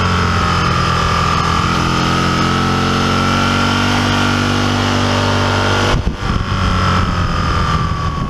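Aprilia Tuono 1000R sport motorcycle's engine running at a steady cruise under wind noise, its pitch climbing slowly through the middle. The sound changes abruptly about six seconds in.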